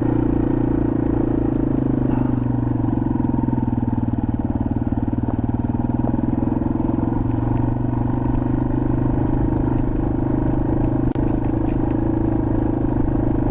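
Yamaha TW200's single-cylinder four-stroke engine running steadily under way at an even speed, with no revving up or down.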